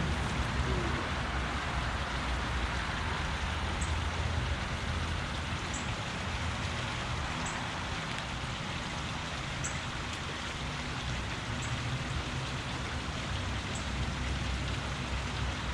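Steady rush of creek water flowing over rocks: an even hiss with a low rumble underneath and a few faint high ticks.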